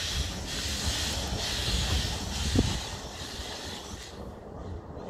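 Narrow-gauge steam train pulling away, heard from the rear coach: a low rumble of the coaches with one clank about two and a half seconds in, under a pulsing hiss of steam that stops about four seconds in.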